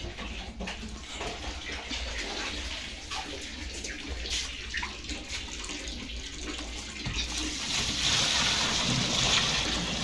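Water rushing and splashing inside a twin-tub washing machine, with scattered knocks from wet clothes being handled in the spin tub. The water rush grows louder about three-quarters of the way through.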